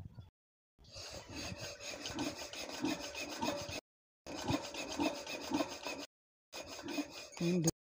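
Rhythmic scraping and squeaking, about two strokes a second, from hand work on an LD 25 HP diesel engine. It cuts off abruptly three times for a moment.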